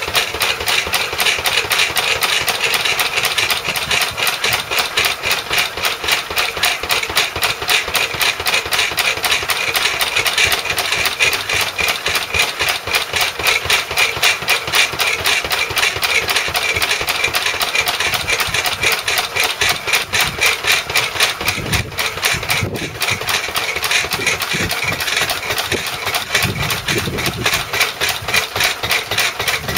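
1929 Lister A single-cylinder stationary engine running steadily on TVO, with a fast, even exhaust beat as it powers a belt-driven sawing rig.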